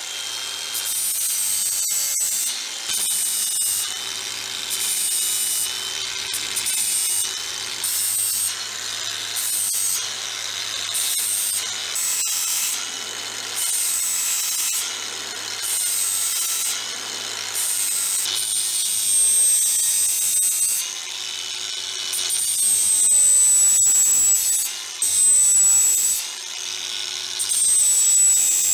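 Angle grinder grinding the rough contour of a rusty steel cleaver blade in repeated short passes. Its high motor whine dips in pitch each time the disc bites the steel.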